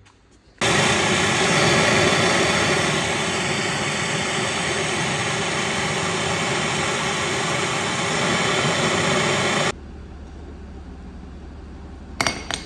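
Handheld gas blowtorch burning with a loud, steady hiss as its flame heats a steering linkage joint. It comes on suddenly about half a second in and cuts off about nine seconds later, followed near the end by a couple of short sharp clacks.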